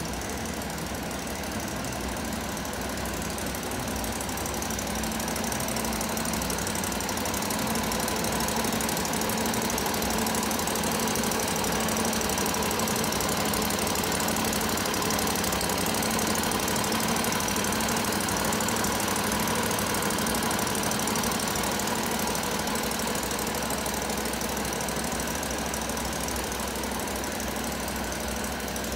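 Skid steer's Predator 670cc V-twin engine running at a steady speed.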